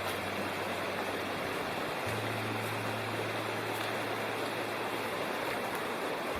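A mountain stream rushing steadily, an even hiss of running water.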